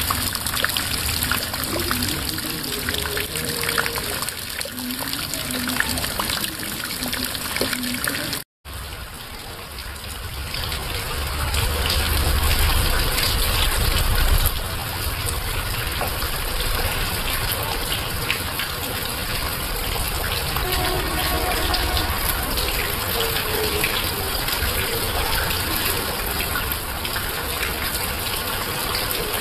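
Shallow stream water rushing and splashing over rocks. After a short break it changes to heavy rain, with rainwater pouring off a roof edge in streams onto leaves. A low rumble swells for a few seconds soon after the change.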